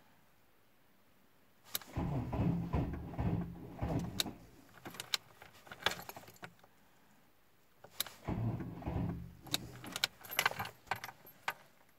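VW Golf Mk2 turbodiesel engine being cranked twice in a failed cold start, each try lasting two to three seconds, about two seconds in and again about eight seconds in, with sharp clicks around the second try and near the end. The engine does not catch; the cause is a weak battery.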